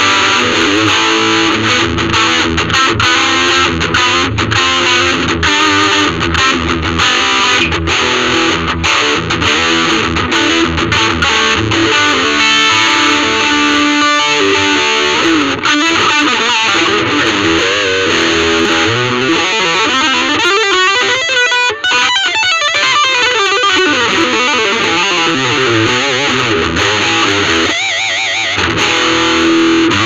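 Ibanez RG350DX electric guitar played through a VOX Soundbox Mini amp: a solo of quickly picked single-note runs, then held notes wavering in pitch about twenty seconds in.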